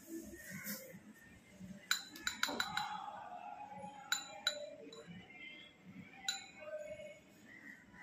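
Small clinks of a metal spoon and white gravel against a glass terrarium bowl as pebbles are spooned in: a quick cluster of clinks about two seconds in, then a few single clinks.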